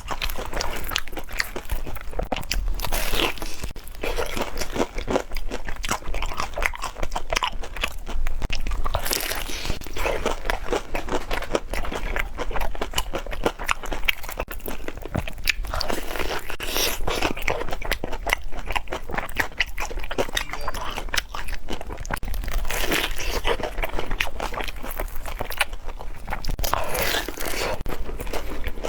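Close-miked crunching and chewing of deep-fried glutinous-rice-coated banana, with dense crackling of the crisp fried coating throughout and a louder bite about every six seconds.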